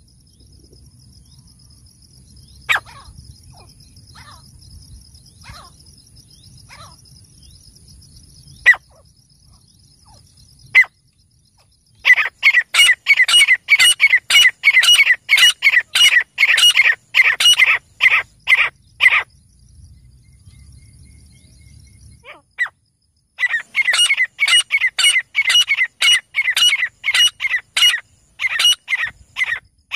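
Male grey francolin calling: a few single sharp notes, then two long bouts of loud, rapid repeated notes, about four a second, each bout lasting around six or seven seconds.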